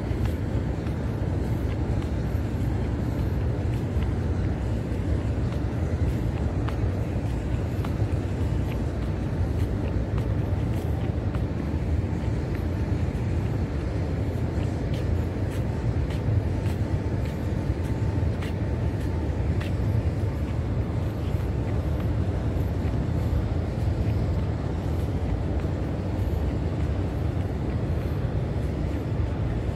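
Steady low rumble of wind and handling noise on a handheld camera's microphone carried at a walk, with a few faint ticks now and then.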